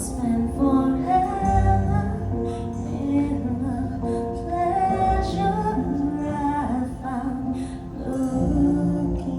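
Live church worship music: a woman singing a slow worship song in long held notes over instrumental accompaniment.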